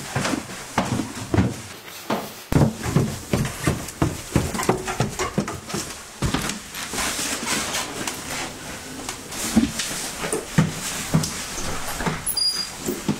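Footsteps and knocks on a house's wooden floors and stairs, an uneven series of thumps and creaks. Near the end a door is handled, with a brief high squeak.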